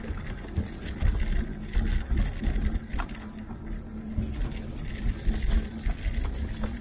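Tern HSD electric cargo bike riding along a wet tarmac path, picked up by a handlebar-mounted camera: continuous low rumble and tyre noise with a steady low hum and scattered sharp clicks and rattles.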